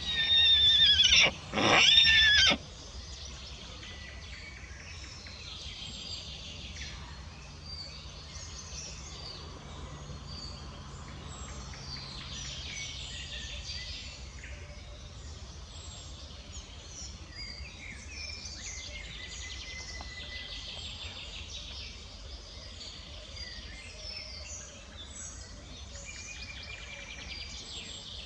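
A pony stallion whinnies loudly right at the start, a high call that falls in pitch, broken once by a short gap, calling out while kept apart from his mare and newborn foal. After that, birds chirp now and then over a steady outdoor background.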